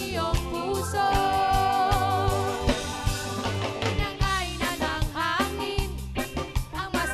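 Background music: an old-school Tagalog song, a voice singing over a band with a steady drum beat.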